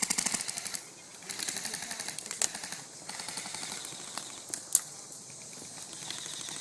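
Airsoft guns firing on full auto: two rapid bursts of clicking shots, a short one at the start and a longer one from about a second and a half in, then a few single sharp cracks, the loudest near the five-second mark.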